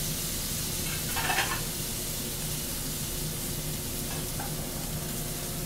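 Beef strip loin steak sizzling as it sears in a hot sauté pan: a steady frying hiss, with a brief louder burst about a second in.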